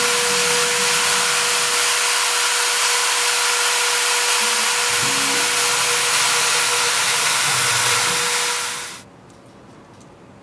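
High-speed accessory spindle on a CNC mill running with a small engraving bit: a loud, steady hiss with a steady whine. About eight and a half seconds in it shuts off and dies away within half a second.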